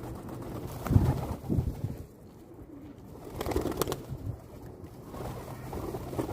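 Pigeons cooing: low calls about a second in and again shortly after, with a short run of sharp clicks near the middle.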